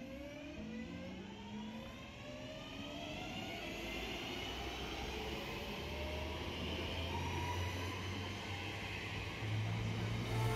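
Electric multiple unit pulling away from a station platform. Its traction motors give several whines that climb together in pitch as it gathers speed, and a low rumble grows louder near the end.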